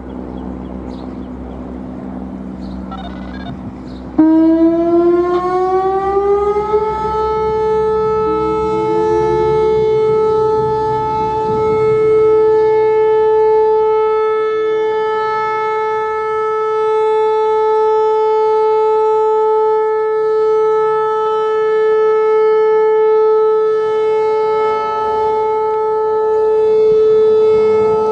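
Whelen Vortex R-4 electronic storm warning siren starting a test. After a low steady hum, it comes on suddenly about four seconds in, rises in pitch for about three seconds, then holds one loud steady tone that swells and eases slowly.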